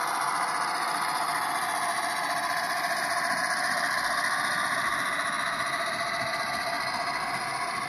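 Model grain train's hopper wagons rolling past on the layout track: a steady noise of small wheels running on rail, easing slightly near the end.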